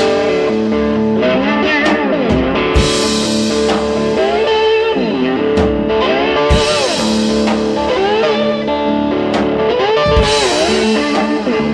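Blues-rock music: electric guitar playing bending lead lines over a steady beat with drum hits.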